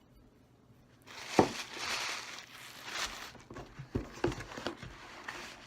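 Paper packaging rustling and crinkling as a box is rummaged through, with a few sharp knocks and clicks of things being handled.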